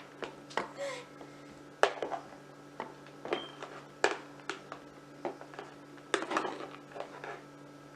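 A spoon knocking and scraping against a bowl and container while rice is scooped out and dropped in: sharp, irregular clinks about once or twice a second.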